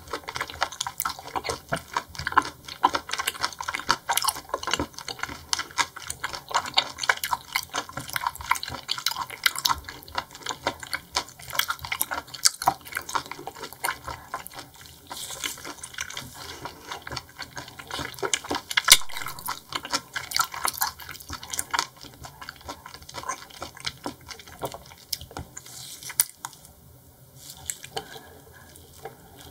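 Close-miked wet chewing of seafood: dense sticky, squelching mouth sounds with many small clicks, thinning out near the end.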